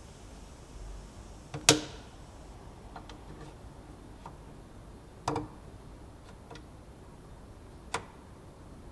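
Plastic push-to-open touch latch being pressed by hand, giving three sharp clicks a few seconds apart, the first the loudest, with faint ticks of handling in between.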